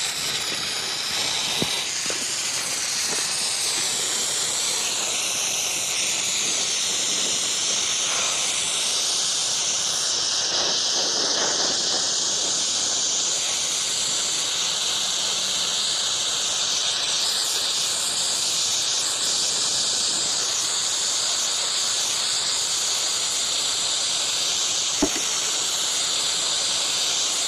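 Lit road flare burning with a steady, loud hiss. There is a single brief tick near the end.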